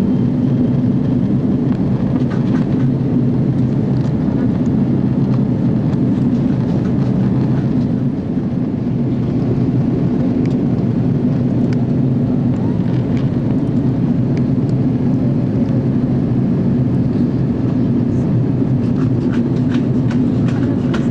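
Jet airliner cabin noise: the engines and airflow make a steady low drone, with a few faint clicks and rattles.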